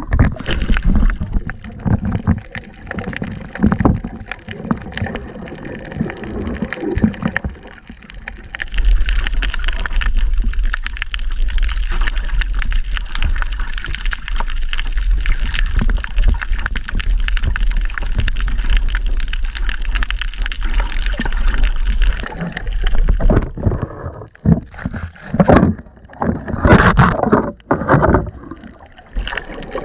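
Muffled water noise of a camera held underwater: gurgling and sloshing, with a steady low rumble through the middle and uneven bursts of splashing near the end.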